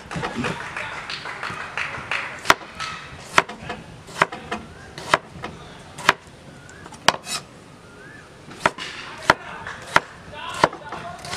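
Chef's knife chopping tomatoes on a wooden cutting board. Each stroke ends in a sharp knock of the blade on the board, about a dozen at an uneven pace of one or two a second.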